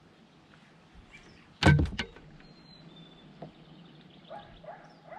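A sudden knock, two or three sharp hits close together about one and a half seconds in; otherwise quiet, with a short high tone a little later and a few faint ticks.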